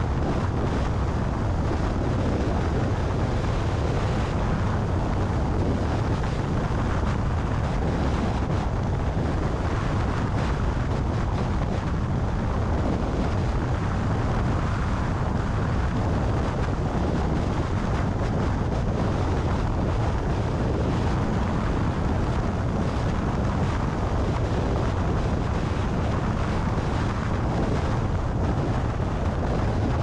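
Steady wind noise on the camera microphone of a car travelling at highway speed, about 115 to 120 km/h, mixed with tyre and road noise. It is a low, continuous noise with no breaks.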